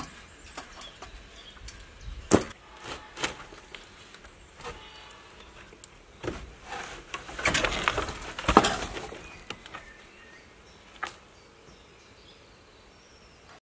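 Irregular knocks and clicks of handling or working on something hard, with a denser clatter and scraping about eight seconds in.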